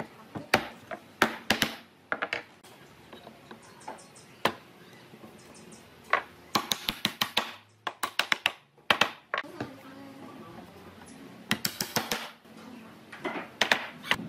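Wooden mallet knocking wooden table-frame joints and legs together: clusters of quick, sharp wood-on-wood knocks with short pauses between.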